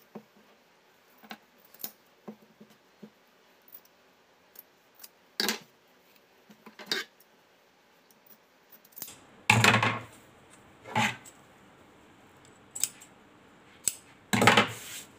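Large tailor's scissors snipping through fabric in a string of short, sharp cuts, trimming excess cloth from a stitched seam. In the second half a few louder knocks and rustles break in.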